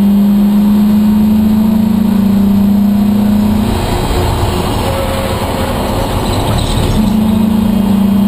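Race car engine heard from inside the stripped cockpit, running hard with a steady drone; about four seconds in the drone falls away as the driver eases off for a corner, and it comes back on the throttle near the end.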